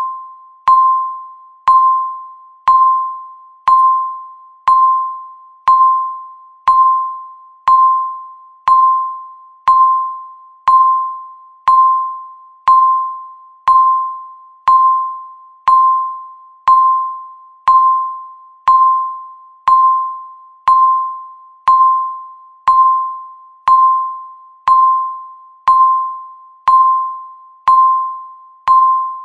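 Countdown timer's tick sound effect: a short ringing tone struck once a second, each fading quickly before the next.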